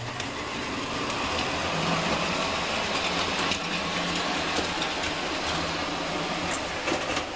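Hornby K1 OO gauge model locomotive running on the track: a steady motor whir with wheels rattling and clicking on the rails, including over a set of points where the noise it makes concerns the owner.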